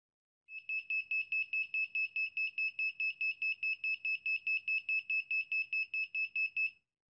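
The DIY AT89C2051 digital clock kit's small buzzer beeping rapidly at a single high pitch, about four to five short beeps a second for around six seconds, then stopping.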